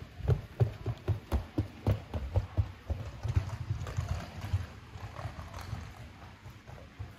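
Hard wheels of a rolling suitcase clattering over paving stones in a quick run of knocks as it passes close by, then fading away.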